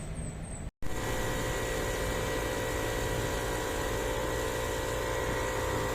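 Steady mechanical hum of a running machine, a constant hiss with a few steady tones, starting abruptly after a short break about a second in.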